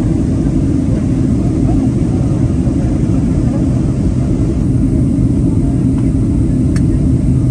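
Steady low roar of an airliner in flight, heard inside the cabin at a window seat: engine and airflow noise. A faint click near the end.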